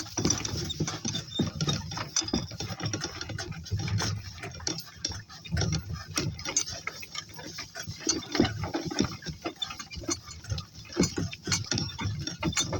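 Walking on: irregular footfalls and rustling with scattered clicks and knocks as the walk with the donkeys resumes.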